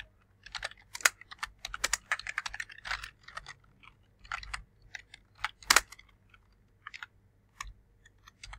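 Typing on a computer keyboard: irregular runs of key clicks, quick and dense for the first few seconds, then slower and more spaced out, with one louder keystroke a little past the middle.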